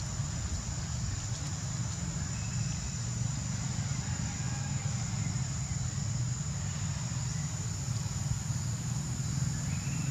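Steady low rumble with a constant thin high-pitched whine above it, unchanging throughout; no distinct calls stand out.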